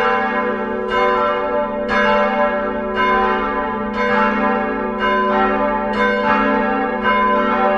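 Church bells ringing, a fresh stroke about once a second, each ringing on over a steady low hum.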